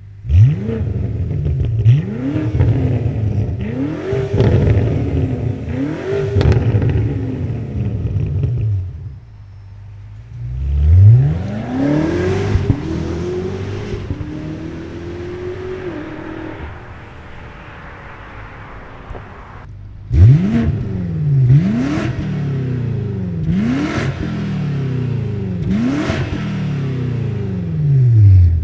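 BMW M5 (G90/G99) twin-turbo V8 through a DCE Parts aftermarket exhaust, revved while standing: a few quick blips, a longer rev that falls slowly back to idle, then a fast run of six blips about one and a half seconds apart. Short sharp cracks come through on several of the blips.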